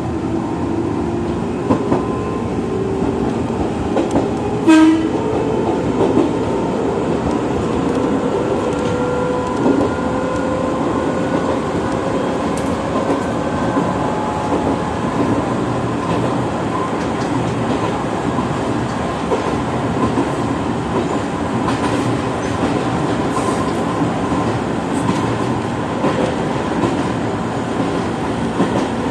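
Izuhakone Railway 3000-series electric train running, heard from the driver's cab: the motor whine rises in pitch over the first dozen seconds as the train accelerates, over steady rolling noise with occasional wheel clacks on the rail joints. A short loud sound comes about five seconds in.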